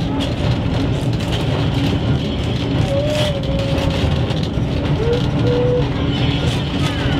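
Snaefell Mountain Railway electric tramcar running on the mountain line, heard from on board: a steady low rumble of motors and wheels on the rails with a constant hum. Brief higher-pitched squeals sound about three seconds in and again about five seconds in.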